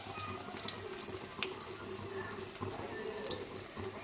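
Chicken leg pieces frying in hot oil: a steady sizzle dotted with small crackles and pops.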